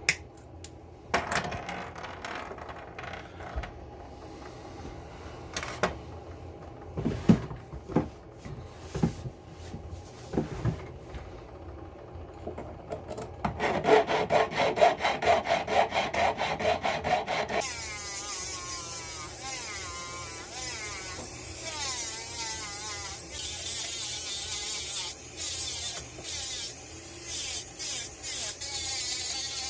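Hand work on a brass ring: scattered sharp taps and clicks, then about four seconds of rapid, even scraping strokes, then a steady high-pitched grinding hiss with a wavering tone.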